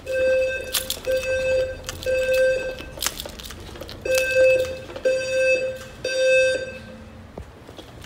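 Fire alarm evacuation tone from a Notifier NFS2-640 voice evacuation system: a low, buzzy tone sounding in the temporal-three pattern, three short beeps, a pause, then three more. A couple of sharp clicks fall between the beeps.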